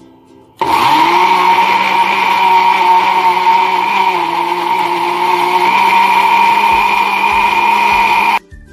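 Kenwood countertop blender motor starting with a quick spin-up, then running steadily while it blends semi-frozen melon chunks into a smoothie. Its pitch dips slightly now and then, and it cuts off suddenly just before the end.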